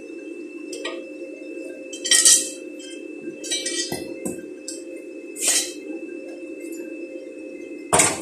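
Metal parts clinking and knocking together in several short separate clinks as they are handled and fitted onto a steel grinder stand, the loudest near the end, over a steady low hum.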